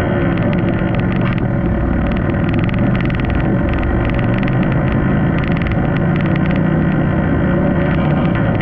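ATV engine running steadily while riding along a dirt trail, with a rough, unbroken mechanical drone.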